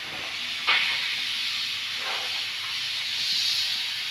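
Steam hissing steadily out of a pressure cooker's vent after its whistle weight has been taken off, releasing the pressure once the dal is cooked; one short knock a little under a second in.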